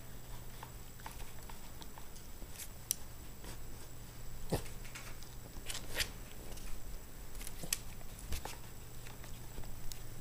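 Papillon dog nosing and mouthing at a laptop screen: scattered soft taps and clicks, with a few sharper ones midway.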